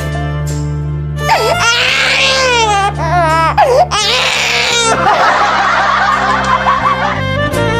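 Several voices laughing mockingly, with sliding, cackling pitch, over a steady background music track. The laughter thickens into a dense jumble of voices from about five seconds in.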